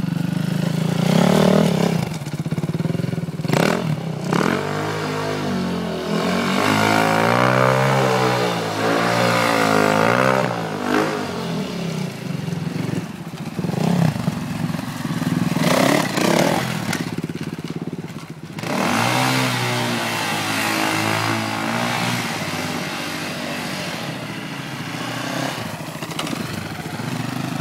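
Off-road dirt bike engines revving repeatedly, the pitch climbing and dropping in a string of bursts with steadier running in between.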